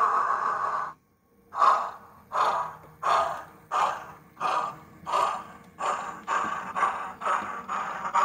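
DCC sound decoder in a model Merchant Navy class steam locomotive (35004). A steady hiss of steam stops about a second in, then exhaust chuffs begin slowly and quicken as the engine pulls away.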